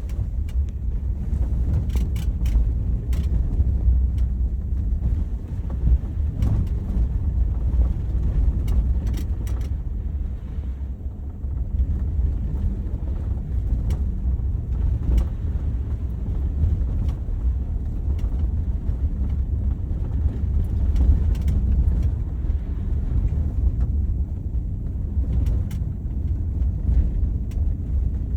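Car driving over a bumpy road: a steady low road rumble with scattered clusters of short knocks and rattles from the vehicle, the noise it makes on rough surfaces.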